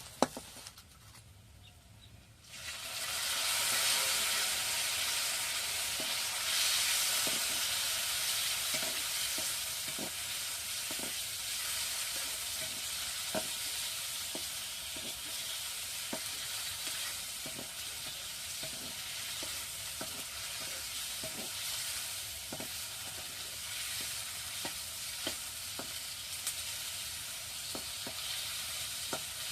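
Hot oil sizzling in a cooking pan, starting suddenly about two and a half seconds in and then running steadily. A stirring spoon knocks against the pan every second or so.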